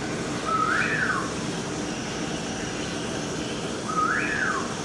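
A bird's whistled call, given twice about three and a half seconds apart: each a short level note that swoops up and then falls away, over a steady background hum.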